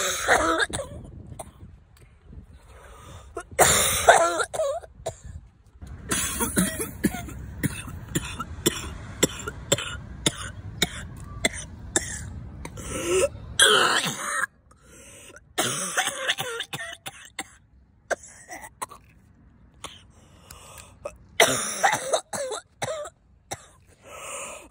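Repeated coughing and throat-clearing in short, separate bursts with pauses between, louder about 4 seconds in and again near the end.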